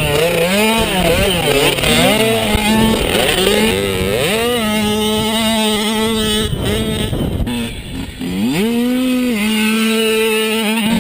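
Mini motorcycle engine revving, its pitch rising and falling repeatedly and holding steady for a couple of seconds at a time, with a dip and a climb back up about eight seconds in.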